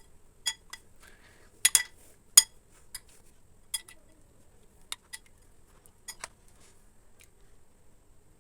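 Irregular sharp clinks of a utensil striking a hard container while slime is being mixed, about a dozen over several seconds, each ringing briefly; the loudest comes about two and a half seconds in.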